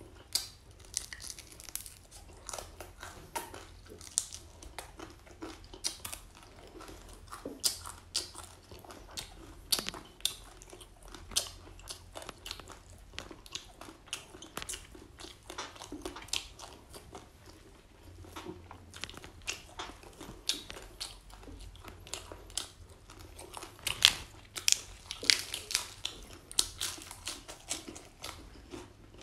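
Close-up chewing and crunching of grilled crocodile with crisp skin, as irregular sharp crunches. They come thickest and loudest a few seconds before the end.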